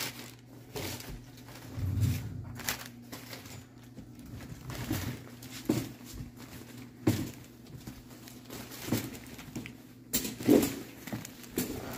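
A loaded cart being pushed over a concrete floor, with footsteps and irregular knocks and brief creaks about every second, over a steady low hum.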